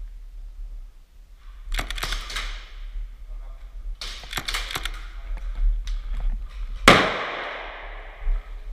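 Airsoft guns firing two short bursts of rapid shots, then one much louder sharp crack about seven seconds in that rings on with a long fading tail.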